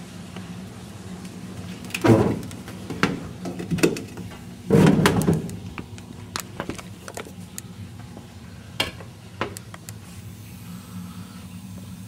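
The sheet-metal front access panel of a Lennox G14 Pulse gas furnace is being handled and lifted off, giving a series of clanks and rattles. The loudest comes about five seconds in, with scattered knocks before and after. A steady low hum sits underneath; the furnace itself is not yet running.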